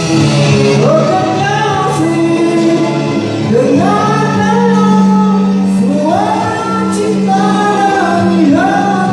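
Karaoke singing of a ballad over a backing track: a voice sliding up into long held notes.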